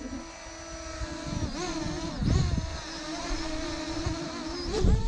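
Parrot Anafi quadcopter's propellers whining steadily while it hovers. The pitch dips and swings twice as the motors fight to keep it level, with low buffeting thumps at those moments.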